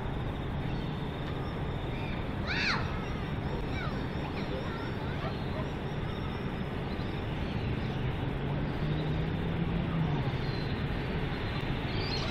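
Diesel-electric locomotives hauling a loaded coal train, a steady low engine drone with rumble, a little louder in the second half as they draw closer. A bird calls once about two and a half seconds in.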